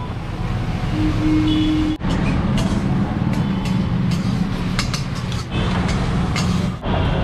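Steady street-traffic rumble at a busy crossroads, with several light clinks of a steel spoon and ladle against steel pots and bowls as food is served.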